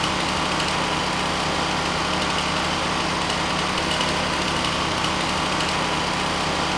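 A fire truck engine, an ETQ TG17M41 portable generator and a Stihl chainsaw all running at once, making a steady, unbroken engine din with a low hum underneath.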